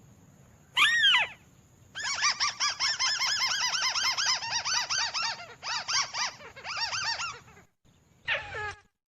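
Crake (burung tikusan) calls from a bird-lure recording. A single downward-sliding note comes about a second in, then a fast run of arched notes, several a second, lasting about five seconds with two short breaks. Another downward-sliding note comes near the end.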